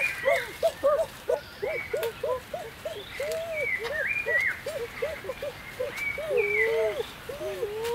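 A rapid series of short, rising-and-falling animal calls, several overlapping at about three a second, with occasional higher chirps above them.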